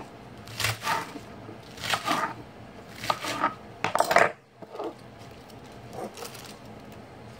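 A serrated knife cutting crisp lettuce on a wooden cutting board: about five crunchy cuts roughly a second apart, then a few fainter sounds of the leaves being handled.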